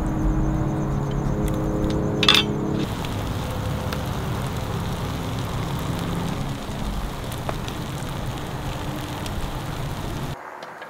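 A low steady hum, then a single sharp clink of a metal serving spoon against a plate about two seconds in. After that comes an even hiss with faint crackles from eel cooking on a grill.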